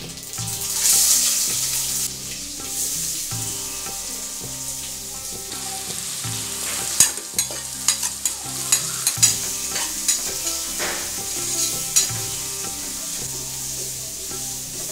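Food frying in hot oil in a pan, with a steady sizzle that swells about a second in, while a spatula stirs it. From about seven to twelve seconds in, the spatula knocks and scrapes sharply against the pan several times.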